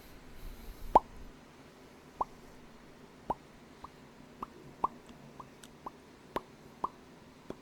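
A person making a series of mouth pops: about eleven short plops, each rising quickly in pitch, at irregular intervals. The first is the loudest.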